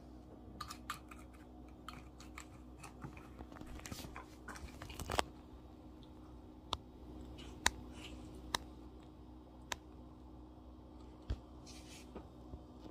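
Small dog mouthing and chewing a small plastic bottle on carpet, the plastic clicking and crunching. A busier patch of crackling comes about four to five seconds in, then single sharp clicks about a second apart.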